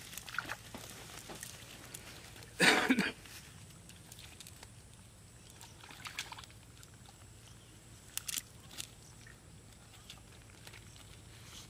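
Cast net and fish being handled on grassy ground: faint rustling with a few small clicks and slaps. One brief loud burst about three seconds in.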